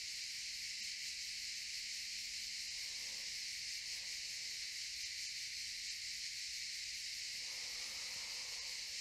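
Cicadas chirring steadily, a dense high buzz that holds unchanged throughout.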